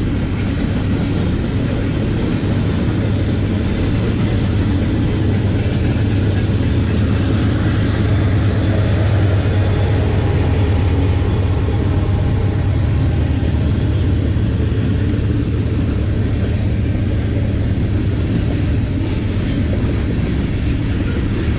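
A long train's cars rolling past in a steady, continuous rumble.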